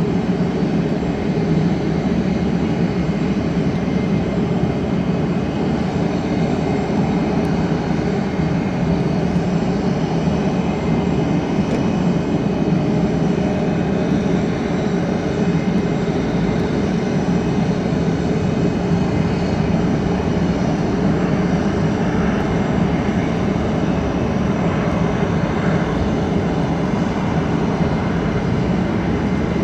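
Jet airliner engine noise, a loud, steady roar with faint high whining tones above it.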